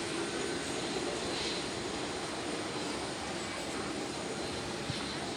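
Jet aircraft engines running, a steady even noise with no change in pitch.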